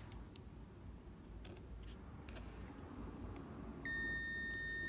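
Digital multimeter's continuity buzzer sounding one steady high beep that starts near the end, as its probes bridge the pins of a desoldered 10N60 power MOSFET: the beep signals a short, the transistor's junctions broken down. A few faint clicks come before it.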